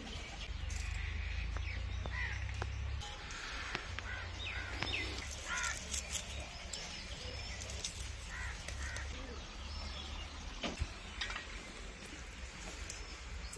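Birds calling now and then over a low rumble, with occasional small clicks of onion and garlic being peeled and cut against a boti, a curved blade fixed in a wooden base.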